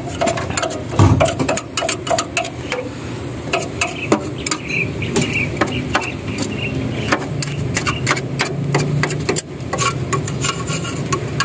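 Hand scraping and clearing burnt debris from the floor of a generator set's steel enclosure: an irregular run of sharp clicks, scrapes and rattles over a steady low hum.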